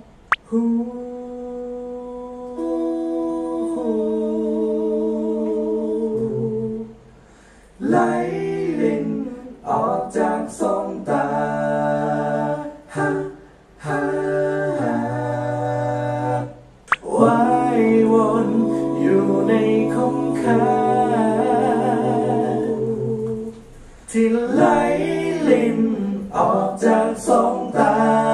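Multitracked a cappella vocal harmony: layered sung parts hold steady chords for the first several seconds, then move into shorter rhythmic notes over a low sung bass line.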